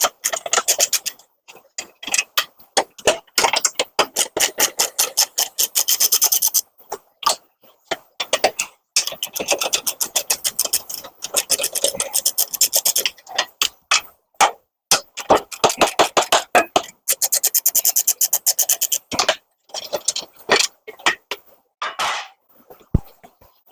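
Hand ratchet wrench clicking in quick runs of even clicks with short pauses, backing bolts off a mower deck's belt cover.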